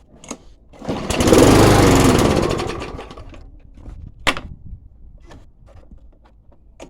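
Mountfield self-propelled petrol lawnmower engine pull-started: it fires about a second in, runs for about two seconds, then slows and dies away. A single sharp knock follows a little over a second later.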